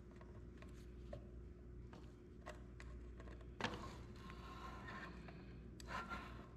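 Small metal clicks of pliers at the hinge pin of a pressed-steel toy dump truck, then a sharp click about three and a half seconds in and a scraping rub of steel on steel as the dump bed is tilted up on its hinge, with another click near the end. A faint steady hum lies under it.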